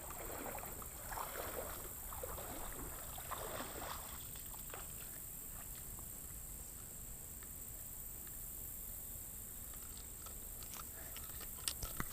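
Faint splashing and sloshing of shallow river water in the first few seconds, settling to a quiet stretch, with a few light clicks near the end.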